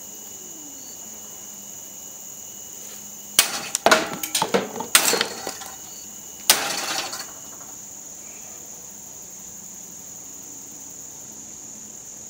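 Katana blade striking and cutting into a PVC pipe: a sharp crack about three and a half seconds in, a quick run of knocks and clatters over the next second and a half, then another sharp hit about six and a half seconds in.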